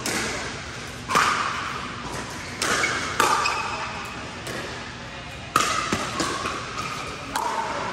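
A series of sharp knocks or thuds at uneven intervals, about six in all. Each is followed by a short ringing tone that dies away.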